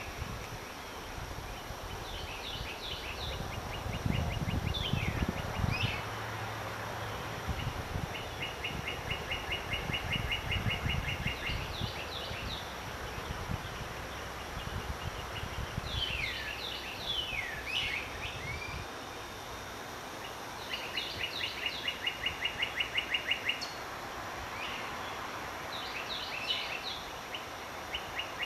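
Songbirds at dawn: one bird repeats a song of a few short high chirps and a fast, even trill about two seconds long, several times over, while another gives quick downward-slurred calls midway through. A steady background hiss runs underneath, with a low rumble in the first third.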